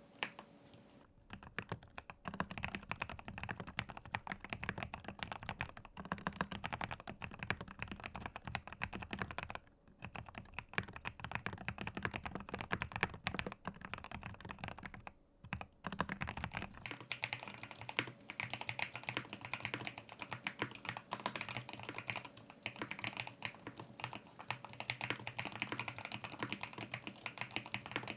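Continuous fast typing on a GMK67 mechanical keyboard fitted with Gateron G Pro milk-cap yellow linear switches in a plastic case: dense, rapid key clacks with brief pauses about ten and fifteen seconds in. Around seventeen seconds in, the low rumble beneath the keystrokes drops away.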